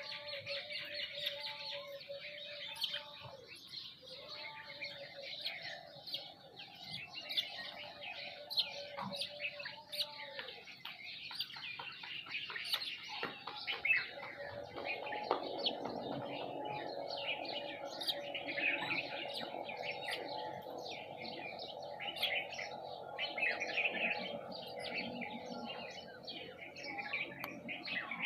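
A flock of small birds, sparrows and mynas among them, chirping busily and without pause, many calls overlapping. Under the chirping runs a steady mechanical hum that fades out about ten seconds in and comes back louder a few seconds later.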